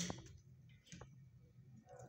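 Faint clicks over a low steady hum: a sharp one at the start and a fainter one about a second in.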